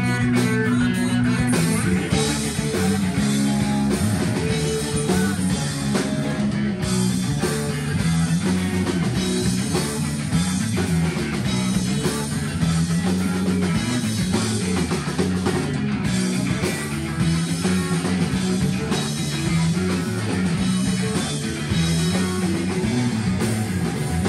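Rock band playing: electric guitar over bass and drum kit, steady and loud throughout.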